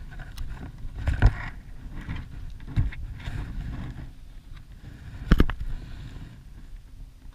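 Plastic kayak and gear being handled, with wind and water noise and three sharp knocks, the loudest about five seconds in, as a plastic bottle is picked up and its screw cap twisted off.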